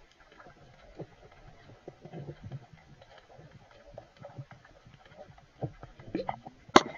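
Irregular underwater clicks and knocks. They are sparse at first and grow more frequent and louder over the last second or so, ending in one sharp click.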